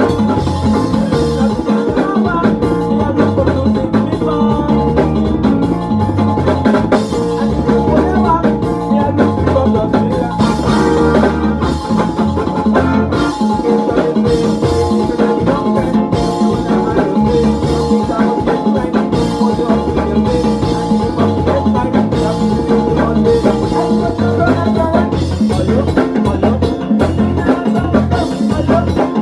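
Loud music with a steady drum beat and bright pitched percussion like steelpan or marimba.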